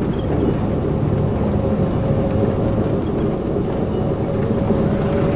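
Steady road and engine noise of a moving vehicle, heard from inside as it drives along, with a faint steady whine that rises slightly in pitch near the end.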